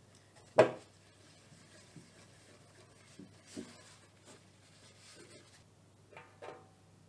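Butter-smeared paper being rubbed around the inside of a metal springform cake tin, soft and scraping. A sharp knock against the tin comes about half a second in, and two lighter knocks near the end.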